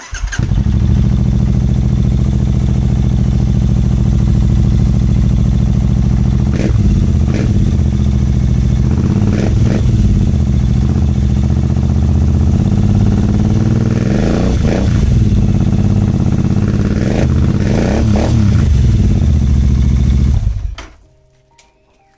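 Royal Enfield Interceptor 650's parallel-twin engine idling through an AEW TE 102 aftermarket exhaust with the dB killer removed. The throttle is blipped several times, up to about 4000 rpm, each rev rising and falling back to idle. The sound cuts off near the end.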